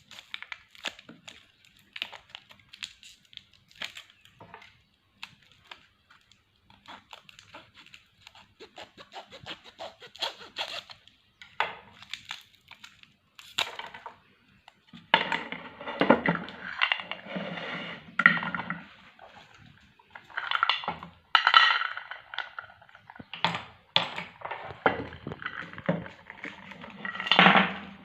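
Meat grinder crushing hard-candy lollipops: scattered sharp cracks at first, then denser, louder crunching and grinding from about halfway.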